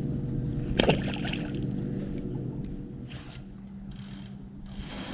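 Bass boat's bow-mounted electric trolling motor humming steadily, with a loud splash about a second in as a small bass is dropped back into the lake, then two short rushing noises.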